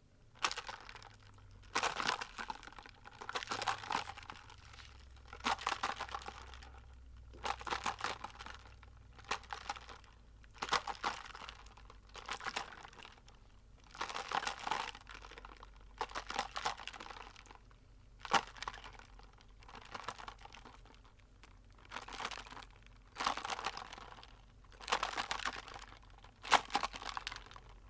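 A big cup of soda being handled, making about fifteen short crackly, rustling bursts every second or two.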